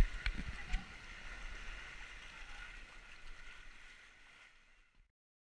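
Water rushing down a waterslide chute under an inflatable ride ring, with a sharp knock at the start and another under a second in. The rushing fades steadily away to silence about five seconds in.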